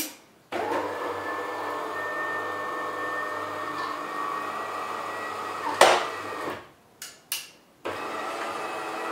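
The brew unit drive motor of a DeLonghi Magnifica ESAM 4500 coffee machine runs steadily for about six seconds, with a thin high squeak over the motor whine. It stops with a sharp click, and a few small clicks follow before it runs again near the end. The brew unit still squeaks a little despite being greased, so it needs more grease.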